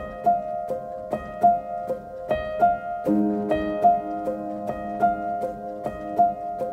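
Instrumental background music: a light melody of short, evenly paced keyboard notes, with lower held notes coming in about halfway.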